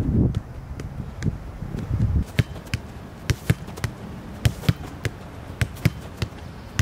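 Soccer ball being struck with the feet in quick close-control touches by New Balance Tekela cleats: a string of short, sharp thuds, roughly two a second and unevenly spaced. A low rumble sits under the first moment.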